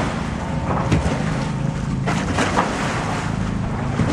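River water lapping and splashing close to the microphone at water level, a steady wash with irregular splashes.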